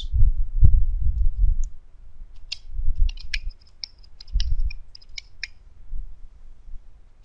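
Computer keyboard keystrokes: a scattered run of quick, sharp key clicks, with low thuds and rumble beneath them that are loudest in the first second or so.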